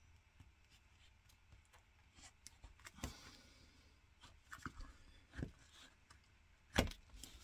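Craft knife cutting into a small plastic eye-drop bottle: faint scraping with scattered small clicks, the sharpest about three seconds in and near the end.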